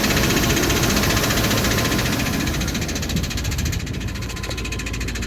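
A 1995 K1500's 5.7 L TBI 350 small-block V8 running at idle with a fast, even knocking clatter. The knock comes from a flexplate cracked all around its bolt pattern.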